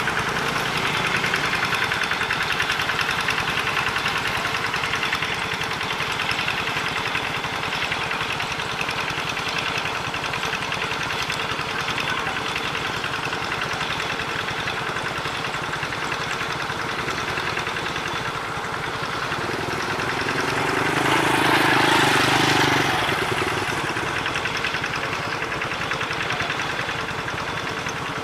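Diesel engine of a GE U18C (CC 201) locomotive running steadily at low power while it hauls a train of old two-axle wagons at walking pace, with a knocking beat. It grows louder for a couple of seconds about three-quarters of the way through.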